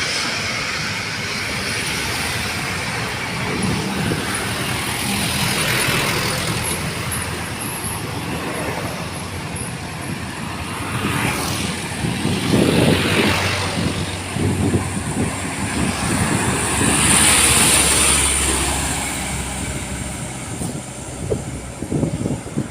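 Road traffic passing close by: engine rumble and tyre noise that swell and fade several times as vehicles go past.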